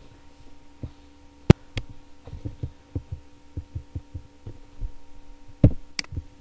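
A steady electrical hum made of several faint tones, under irregular soft knocks and clicks, with one sharp click about a second and a half in and two more near the end.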